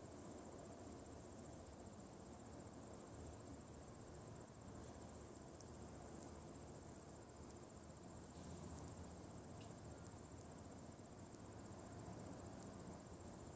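Faint outdoor ambience: a steady, high-pitched, rapidly pulsing trill over a low continuous rumble, with a few faint ticks.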